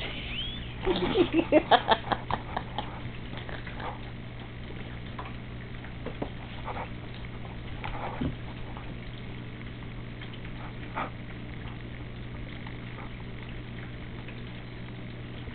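Doberman puppy giving a rapid burst of short, high play growls about a second in, then scuffling with scattered light knocks as it pounces and plays.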